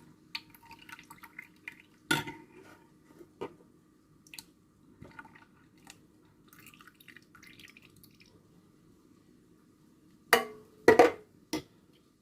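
Yogurt ingredients being handled in a bowl: quiet drips and pouring of milk and condensed milk, with scattered light clinks of dishes. Near the end there are three sharp knocks of a container or utensil against the bowl, the loudest sounds.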